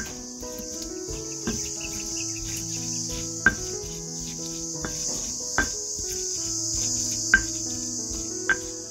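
Stone pestle knocking against a stone mortar while crushing shallots into chili paste: sharp knocks about every one to two seconds. Under it are a steady chorus of chirping insects and soft background music with sustained notes.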